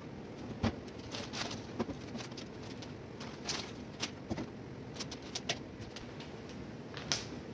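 Scattered light clicks, knocks and rustles of things being handled and set down at a desk, including a plastic package, over a steady low room noise.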